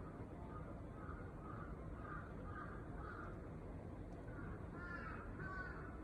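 An animal calling in two runs of short, repeated calls, about two a second, over a steady low rumble.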